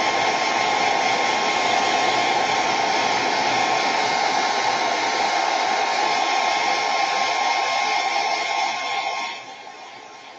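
Handheld hot-air blower running steadily as it dries freshly applied craft work: a steady airy rush with a motor whine. It grows much quieter about nine seconds in.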